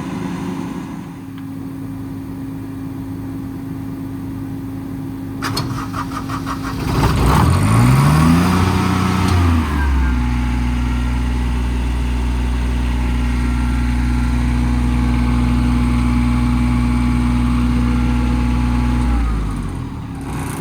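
Cummins ISL 8.9 diesel engine of a Freightliner M2 running steadily; about seven seconds in it rises in speed over a couple of seconds and holds there, louder, driving the truck's crane hydraulics, then drops back near the end. A short rattle of clicks comes just before the rise.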